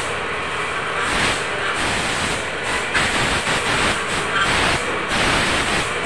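Compressed air hissing from a blow gun on a coiled air hose, swelling in several short bursts over the steady noise of a machine shop.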